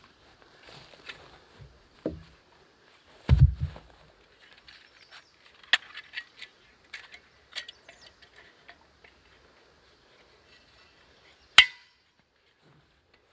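A folding bow saw being unfolded and set up: a dull thump about three seconds in, then a run of light metal clicks and clinks, and a sharp snap near the end as the saw's frame locks open.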